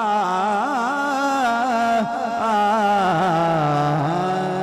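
Man singing a Punjabi devotional kalam into a microphone, in wavering melismatic runs that fall and settle into a long held note about four seconds in.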